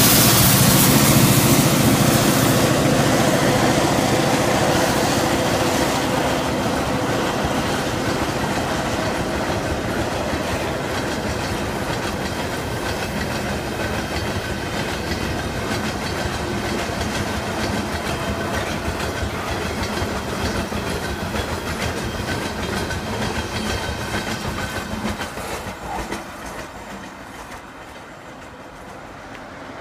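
Loaded ore train passing close by: a trailing EMD GP38-2 diesel locomotive goes by in the first seconds, then a long string of steel ore hopper cars rolls past with its wheels clattering on the rails. The sound fades slowly and drops away about 26 seconds in as the end of the train recedes.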